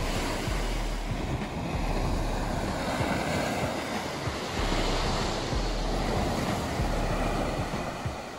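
Sea surf washing onto a beach, a steady rushing noise, with wind buffeting the microphone in low rumbles.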